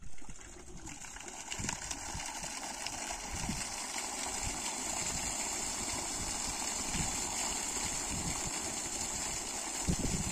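Water gushing from the discharge pipe of a 3 hp solar pump running at slow speed and splashing into an irrigation channel. It is a steady rush that grows louder over the first few seconds as the flow builds.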